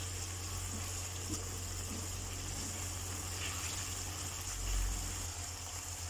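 Chicken pieces bubbling and sizzling in the last of their reducing cooking liquid in a nonstick wok, a steady hiss with a low steady hum underneath.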